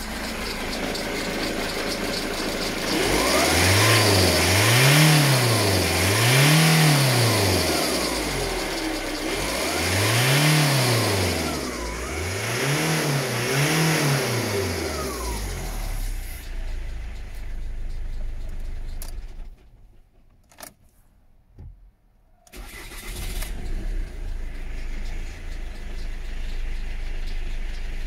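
Ford Mondeo Mk3 2.0 TDCi four-cylinder diesel engine running, revved up and let fall back five times in quick blips, then settling to a steady idle. The sound nearly cuts out for about three seconds in the second half.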